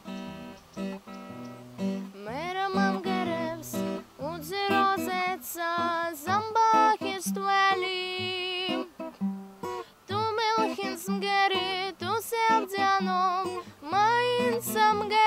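A girl sings to her own strummed Yamaha acoustic guitar. The guitar plays alone for about two seconds before the voice comes in.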